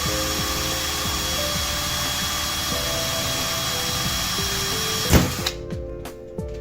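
Electric drill with a tiny bit running steadily into a laptop, then a sharp snap about five seconds in as the bit breaks, and the drill stops. Background music plays underneath.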